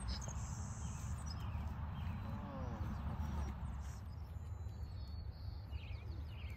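Outdoor ambience: a steady low wind rumble on the microphone, with a few faint bird chirps.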